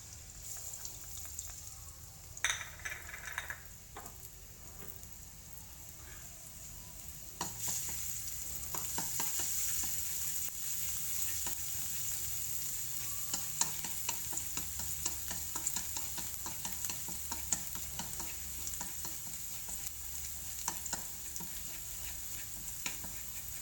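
Minced garlic sizzling in hot cooking oil in a stainless steel wok while being fried until fragrant, stirred with wooden chopsticks that tick against the pan. The sizzle grows louder about seven seconds in.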